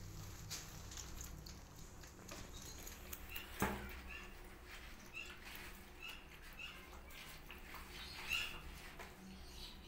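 Cat eating wet food from a plate: soft wet chewing and smacking clicks, with one sharp click about a third of the way in. From about three seconds on, short high squeaks recur roughly twice a second.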